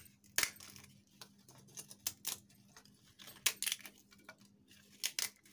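Crisp fried papdi wafers snapping and crackling as they are broken by hand, a series of irregular sharp cracks.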